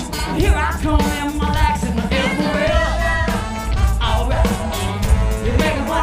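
A live band playing with trombone, saxophone and electric guitar over a steady beat, with a vocalist at the microphone.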